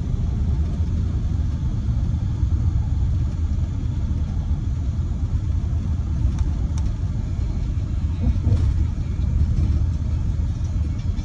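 Steady low rumble of tyre and engine noise heard inside a car cruising at highway speed, with a few faint ticks about midway.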